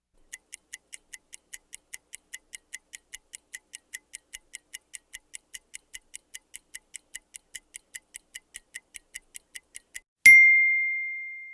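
Mechanical microwave oven timer ticking steadily, a bit under three ticks a second, then its bell dinging once about ten seconds in and ringing away as the time runs out.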